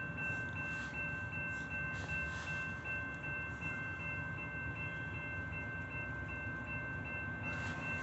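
Diesel freight train approaching out of sight: a steady low rumble of the locomotives, with a faint steady high whine over it.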